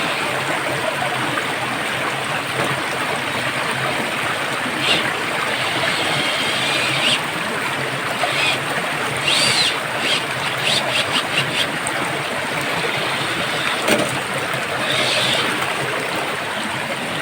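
Steady rush of flowing stream water, with a few short high chirps scattered through the middle.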